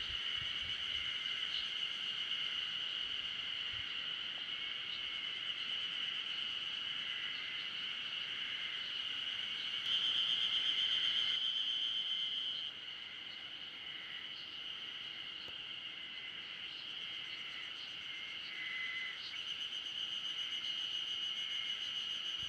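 Insect chorus: a steady high buzzing that grows louder for a couple of seconds midway, then drops back.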